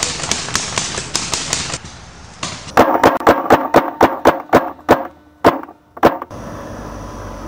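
Paintball marker firing rapid strings of shots, about five pops a second, with a second, louder burst about three seconds in. The firing stops about five seconds in, leaving a low steady rumble.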